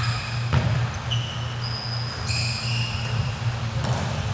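Basketball game on an indoor court: a ball bouncing, with two sharp thuds about half a second and about four seconds in, and several short high squeaks of sneakers on the floor.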